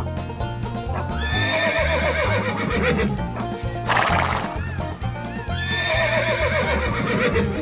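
A horse neighing twice, each whinny a shaky, wavering call lasting about two seconds, with a short breathy burst between them, over background music with a steady beat.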